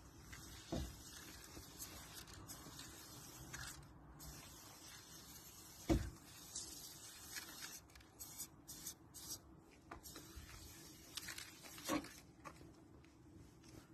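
Faint short hisses of an aerosol spray-paint can spraying onto a wall, with three dull knocks, the loudest about six seconds in.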